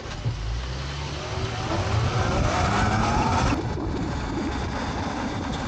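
Electric dirt bike accelerating: a rising motor whine over a steady rushing noise, the whine breaking off about three and a half seconds in.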